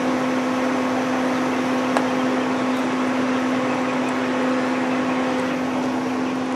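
RustBusters spray-welding machine humming steadily at idle with the gun not spraying: one steady mid-low tone over a light hiss. A single sharp click about two seconds in.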